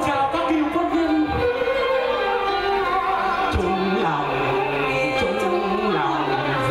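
A woman singing a Vietnamese chèo folk song into a microphone, accompanied by traditional Vietnamese instruments. A lower-pitched part comes in about three seconds in.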